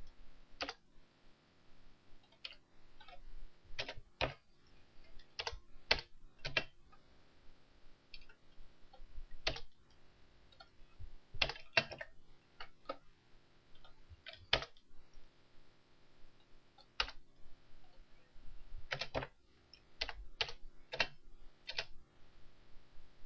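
Computer keyboard keys pressed irregularly, single taps and short runs with pauses between.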